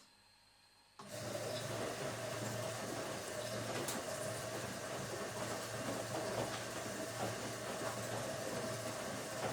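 Automatic washing machine switching on about a second in and then running steadily, a low hum under a rushing noise.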